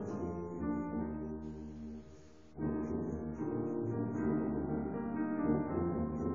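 Solo tuba with piano accompaniment playing a classical piece. The music drops away briefly about two seconds in, then resumes.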